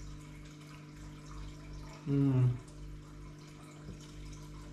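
A man's short hummed "mmm" about two seconds in as he tastes a raw chili, over a steady low hum. A faint tap of a knife on a wooden cutting board near the end.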